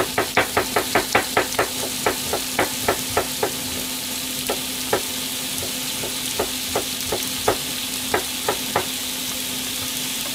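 Sliced pork, shiitake and satsuma-age frying in a pan: a steady sizzle with a quick run of crackling pops that thins out after about three seconds to scattered pops.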